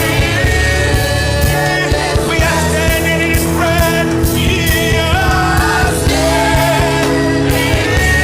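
Christian worship music from a band: a regular drum beat and steady bass under held, gliding melody lines, with singing.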